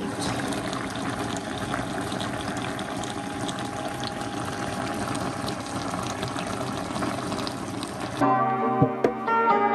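Chicken and bok choy in sauce bubbling and sizzling in an uncovered wok, a steady dense crackle. It cuts off about eight seconds in and music takes over.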